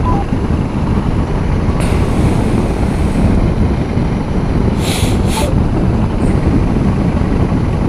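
Motorcycle riding at road speed: steady engine, road and wind noise on the bike-mounted camera's microphone, with a couple of short hissing bursts about five seconds in.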